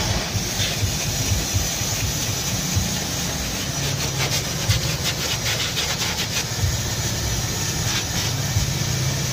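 Clear plastic floor-protection film crinkling and rubbing as it is smoothed over car carpet with a cloth, with bursts of crackling in the middle, over a steady low hum.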